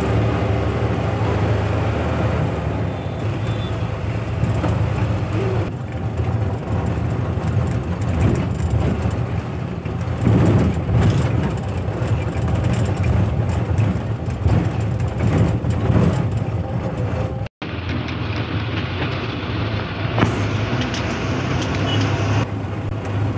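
Bus engine running steadily with road noise, heard from inside the moving bus: a constant low drone. The sound cuts out for an instant about three-quarters of the way through.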